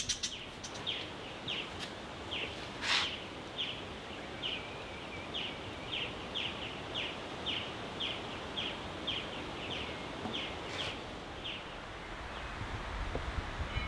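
A bird calling over and over, short high falling notes about twice a second, stopping about three quarters of the way through. One sharp knock sounds about three seconds in.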